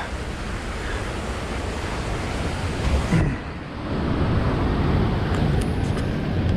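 Steady rushing of ocean surf mixed with wind on the microphone, growing louder about four seconds in.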